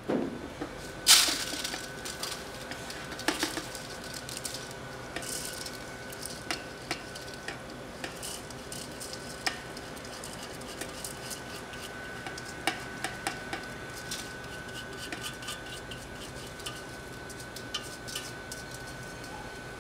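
Soaked rice tipped from a stainless-steel colander into a steel hopper: the colander knocks and clinks against the metal rim, with one loud metal knock about a second in, and the wet grains rustle and scrape as hands sweep them out. A faint steady high whine runs underneath.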